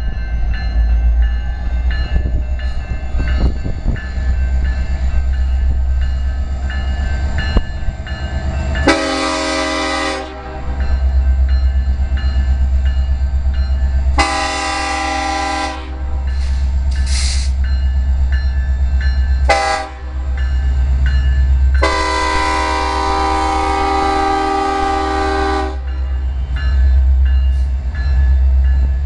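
Air horn of a BNSF SD70ACe diesel locomotive sounding the grade-crossing signal: long, long, short, long, over the steady low rumble of the approaching train's diesel engines.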